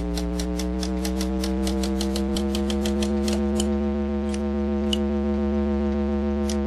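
Intro music: a held droning chord with a fast, even ticking over it, about six ticks a second, which thins to a few scattered clicks about three and a half seconds in.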